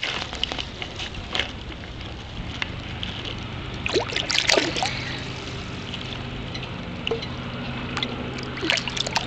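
Sea water lapping and sloshing against a mesh keep net holding live mullet, with a few small splashes about four seconds in and again near the end.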